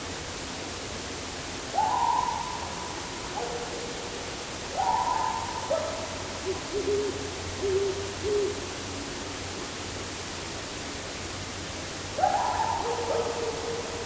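Long howl-like animal calls at night, three of them, each sliding up, holding, then dropping lower, about 2, 5 and 12 seconds in, with four short, lower notes around 7 to 8 seconds. The recordist hears them as canine-sounding. A steady hiss and low hum run underneath.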